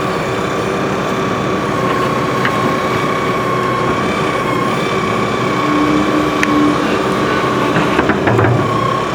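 Hydrema 906D backhoe loaders working, with the diesel engine running and a steady high whine throughout. A few sharp knocks come through, one about two and a half seconds in and a cluster near the end.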